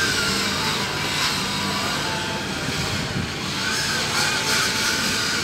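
A steady mechanical drone with a faint thin whine that drifts slowly up and down in pitch.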